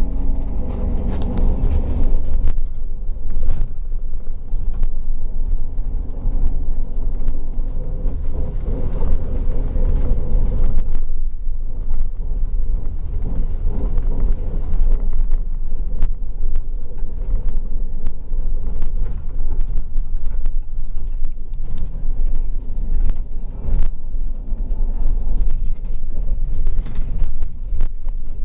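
Bus heard from inside the cabin while driving: a heavy low rumble of engine and tyres, with scattered knocks and rattles from the body over a road whose asphalt has been milled off. The engine note fades about eleven seconds in.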